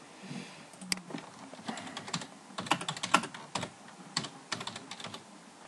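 Computer keyboard typing: irregular key clicks in short quick runs as a few words are typed.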